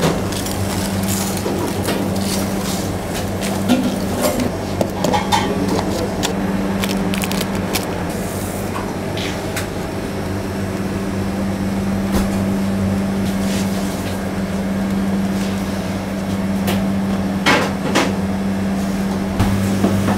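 Steady low hum of bakery equipment, with scattered light knocks and clatter of metal baking trays and utensils being handled.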